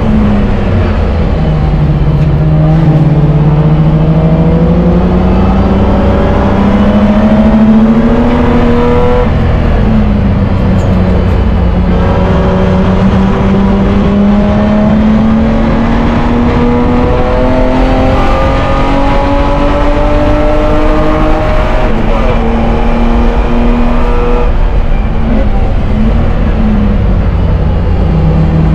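BMW E30 Spec E30 race car's engine heard from inside the cockpit at racing speed, its pitch climbing under acceleration and dropping back several times, over steady road and wind noise.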